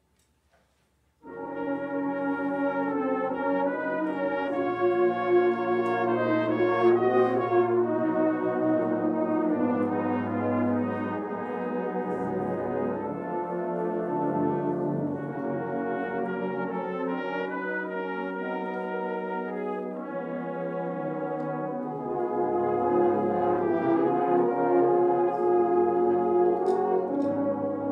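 A Salvation Army brass band of cornets, horns, trombones, euphoniums and tubas begins a hymn-song setting about a second in and plays sustained chords over a steady bass line.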